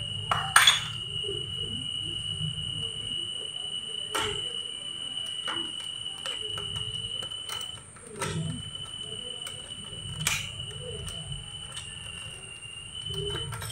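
A few scattered sharp metallic clicks and taps as a screwdriver works inside the crankcase opening of a motorbike engine being stripped, over a steady high-pitched whine and low background hum.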